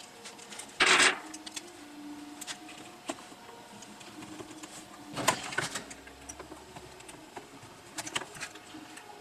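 Small clicks and knocks of tools and chainsaw parts being handled on a workbench, with a short loud burst of hiss about a second in.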